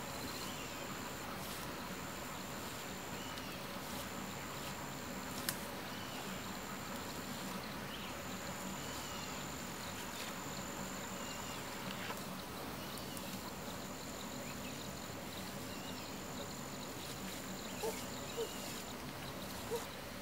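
Insects buzzing at a high pitch in on-and-off stretches of a second or two over a steady outdoor hiss, with faint short chirps and a few soft clicks.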